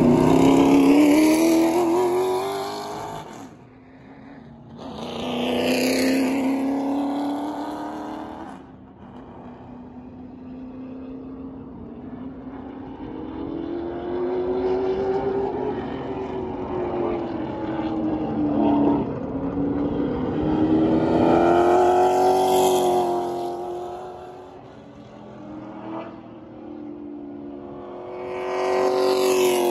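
Outlaw late model race cars' V8 engines passing repeatedly on a paved oval, each pass swelling and fading, with the engine note rising and falling as the drivers lift and get back on the throttle. The loudest passes come about a second in, at about six seconds, at about twenty-two seconds and near the end.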